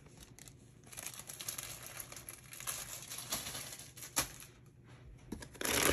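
Clear plastic parts bags crinkling and rustling as they are handled, with light clicks of plastic part trees. It is faint at first and much louder near the end.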